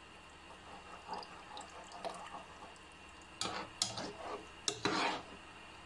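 A metal spoon stirring a thin sour-cream sauce with chicken livers in a frying pan: soft wet sloshing, then a few sharp clinks and scrapes of the spoon against the pan between about three and a half and five seconds in.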